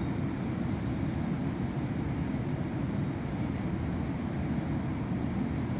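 Steady low rumbling background noise outdoors, even and unbroken, with no distinct events.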